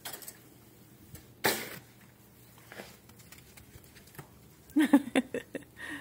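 Mostly quiet, with a brief rustle about a second and a half in and, near the end, a quick run of short voice sounds from a person, like a laugh.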